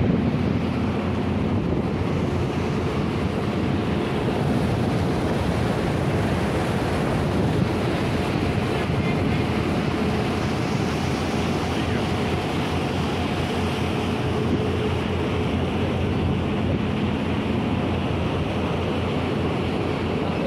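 Steady wind rushing over the microphone on the deck of a small motor boat under way, with the wash of water along the hull and a low, even engine hum beneath.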